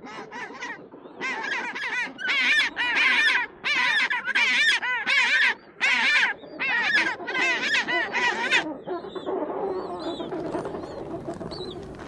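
African penguin braying: a run of about a dozen loud, honking, donkey-like calls at roughly two a second. About nine seconds in the calls stop, leaving a lower, steady background with faint chirps.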